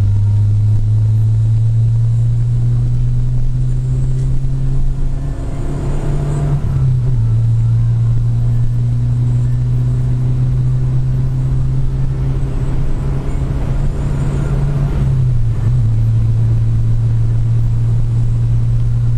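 Car engine and exhaust running at a steady low rumble, with brief small shifts in pitch about six and fifteen seconds in.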